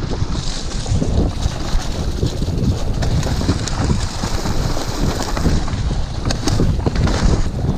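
Wind buffeting the action camera's microphone as a mountain bike rides a muddy, leaf-covered trail, over the steady rumble of tyres on wet dirt. A few sharp rattles from the bike come near the end.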